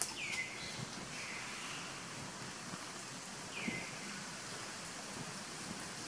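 Three short, high whistled animal calls: the first near the start and the last about three and a half seconds in slide downward, the middle one is held level. A steady outdoor background hiss runs under them.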